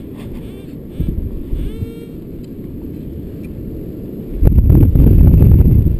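Hard wind buffeting the camera microphone, a steady rumble that gusts much louder about four and a half seconds in.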